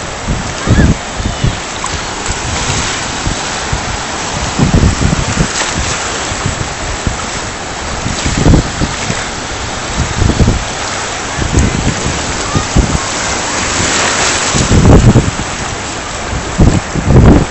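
Surf washing and breaking in the shallows, a steady rush, with wind buffeting the microphone in irregular loud, low gusts every few seconds.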